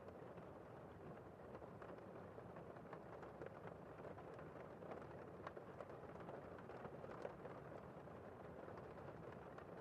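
Faint, steady rain, with many individual drops ticking sharply through the hiss.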